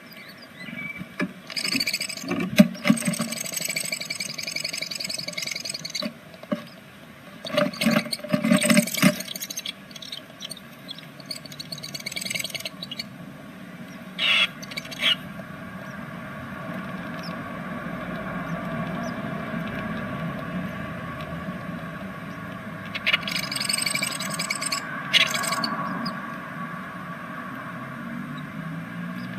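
Great tit scratching and rustling nest material inside a nest box, in several short bursts, over a steady low background hum.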